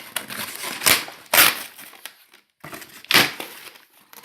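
Cardboard shipping box being handled and opened: rustling and scraping of cardboard and packaging, with three loud short rasps about one, one and a half, and three seconds in.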